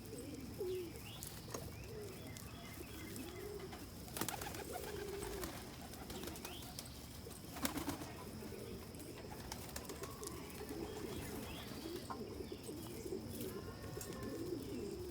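A flock of domestic pigeons cooing, many low, wavering coos overlapping without a break, with two sharp clicks in the middle.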